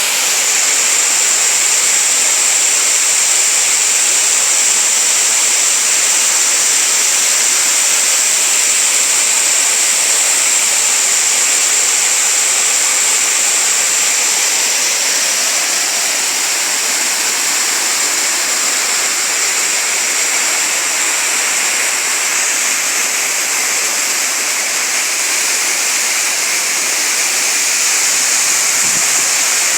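Waterfall: water falling and rushing over rocks as a steady, loud hiss.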